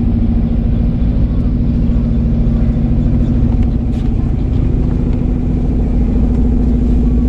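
A houseboat's engine running at a steady speed while under way, a constant hum with a low rumble beneath it.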